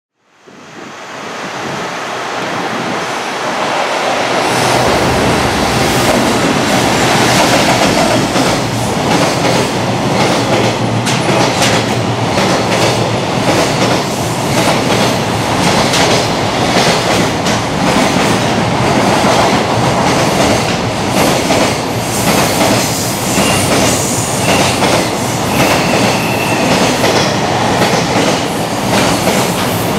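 Freight train of container wagons passing at speed: a loud, steady rush of wheels on rails with rapid clickety-clack over the rail joints, swelling in over the first few seconds.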